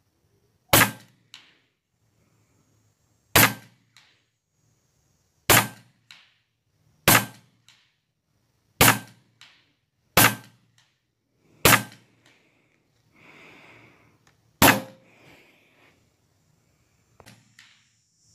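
A Huben K1 semi-automatic PCP air rifle fires eight shots, each a sharp crack, spaced one to three seconds apart. Each crack is followed about half a second later by a faint tick.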